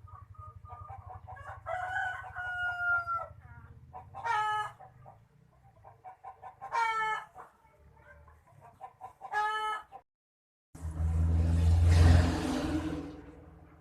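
Chickens calling: several separate drawn-out calls a few seconds apart over a low hum. A short dead gap follows, then a loud rushing noise that swells and fades over about three seconds.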